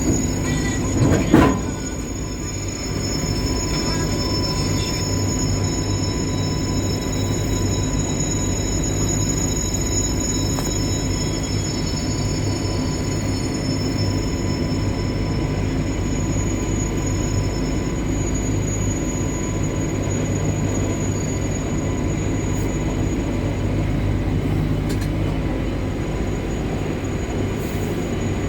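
WAG-9 three-phase electric freight locomotive running, a steady low rumble with a few faint steady high-pitched whines over it. There is a brief loud burst about a second in.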